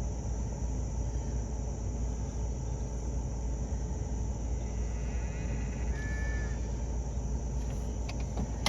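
Steady low outdoor rumble with a short bird call about six seconds in.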